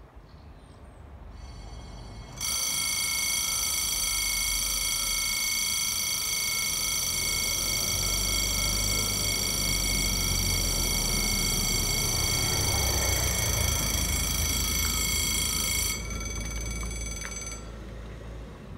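Level crossing's electronic warning bell ringing as one steady high tone, warning that the barriers are coming down. It starts sharply about two seconds in, drops in level near the end and stops shortly before the end. Under it a car's engine and tyres draw near.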